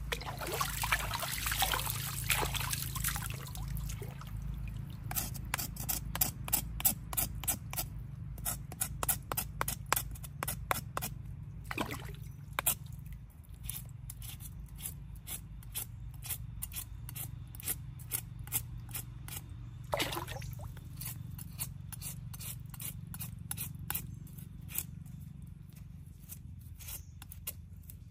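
Water splashing and trickling for the first few seconds, then a long, irregular run of short dry scrapes and clicks.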